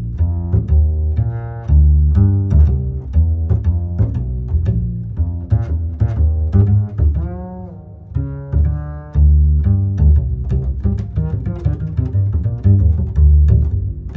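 Instrumental background music: a run of short pitched notes over a heavy bass line, with one note sliding down in pitch about seven seconds in.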